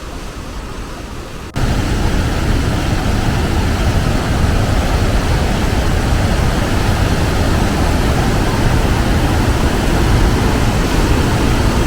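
Rushing whitewater of the Rogue River pouring through its lava-rock gorge: a steady roar of water that jumps suddenly much louder about a second and a half in.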